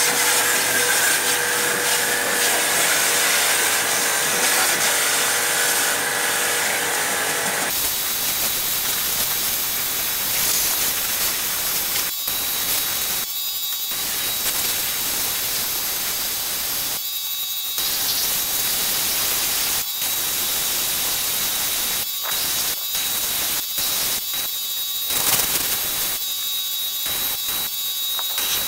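Pressure-washer jet spraying water onto an air conditioner's indoor unit and evaporator coil: a loud, steady hiss of water. In the second half the hiss cuts out briefly several times as the spray stops and starts.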